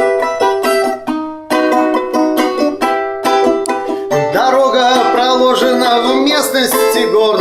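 Balalaika played in fast, even strumming, with a short break a little after a second in; about four seconds in a singing voice comes in over it.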